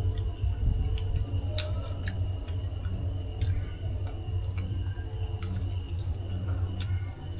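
Eating sounds at a meal: chewing close to the microphone, with scattered sharp clicks of tableware, over a low steady rumble.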